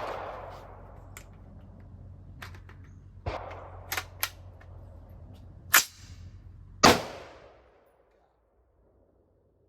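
Gunshots from an AR pistol, about six shots spread unevenly, the two loudest about six and seven seconds in, each with a ringing tail. The shooting stops about eight seconds in.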